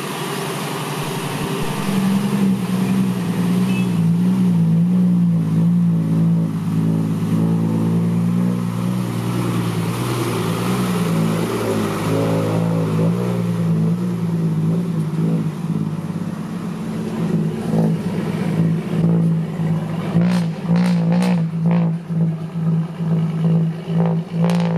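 Six-wheel dump truck's diesel engine running hard on a steady note, picking up about two seconds in. Rattling knocks join near the end.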